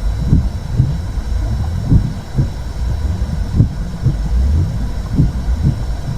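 Womb sound for soothing a baby: a low, muffled rumbling whoosh with a heartbeat-like double thump about every one and a half seconds.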